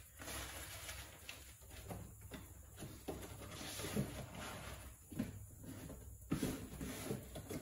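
Connecting rods and their cardboard box handled on a workbench: quiet rustling with a few light knocks, the sharpest about six seconds in.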